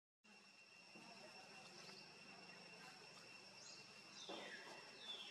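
Faint outdoor ambience, with a steady high whine throughout and a single falling call about four seconds in, after a brief silent gap at the start.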